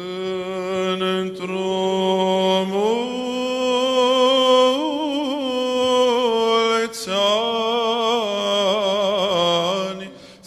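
Male voice chanting an Orthodox church hymn in slow, melismatic style. It holds long notes that step up in pitch about three seconds in, pauses briefly for breath about seven seconds in, then moves through quick ornamented turns near the end.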